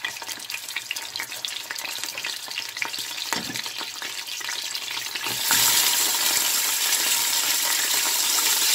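Chicken thighs searing in hot oil and bacon fat in a stainless steel pot: a light crackling spatter, then a sudden, much louder sizzle about five and a half seconds in as another piece goes into the oil, sizzling steadily after that.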